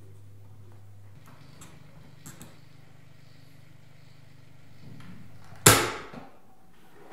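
Low steady hum that steps up in pitch about a second in, with a few faint clicks, then a sudden loud hit about two-thirds through that dies away over about half a second.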